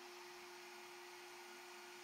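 Near silence: a faint, unchanging hum with hiss.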